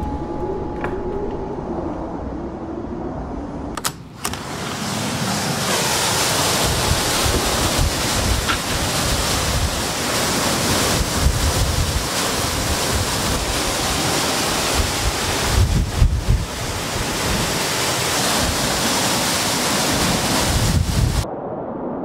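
Severe storm wind blowing hard through trees, with gusts buffeting the microphone. It is duller and quieter for the first few seconds, then loud and rushing after a brief break about four seconds in, with the strongest gusts about two-thirds through.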